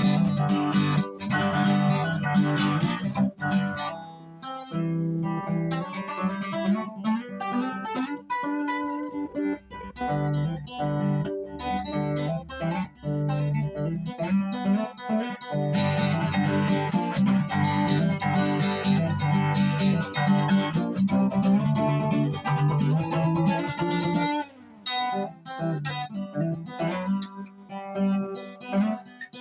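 Acoustic guitar music: chords strummed and picked, with the playing thinning out briefly twice.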